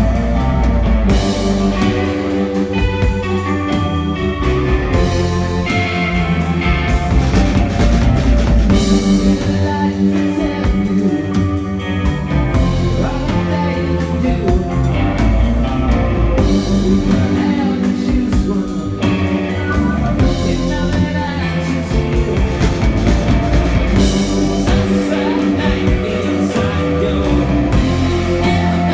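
A rock band playing live: electric guitar and drum kit, with a male singer singing over them.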